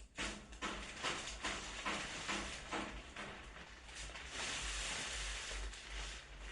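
Irregular rustling and scraping noise in a run of short strokes, typical of things being handled and pushed about while tidying up.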